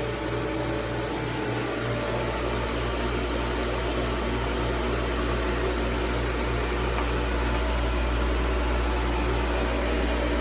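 Jandy FloPro pool pump motor running steadily with a low hum after its bearings were replaced: so far it is running without a fault.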